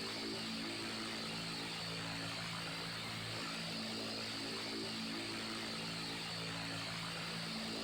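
Electric fan running steadily: an even rush of air with a low motor hum whose tones slowly swell and fade.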